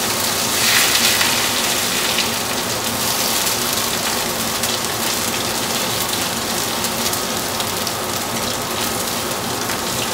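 Tuna fishcakes sizzling steadily in a shallow pan of hot oil as they fry on their second side, swelling a little about a second in.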